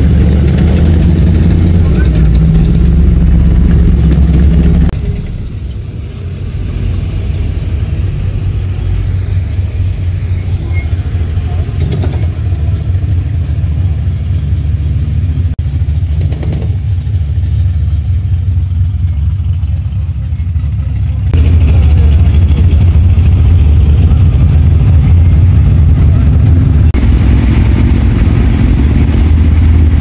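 V8 car engines running loudly close by, a deep rumble that eases off about five seconds in and swells back up again about 21 seconds in.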